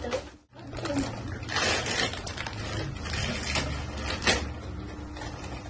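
Wrapping paper rustling and crinkling as a present is unwrapped by hand, in irregular handling noises with a few sharper crackles, over a faint steady hum.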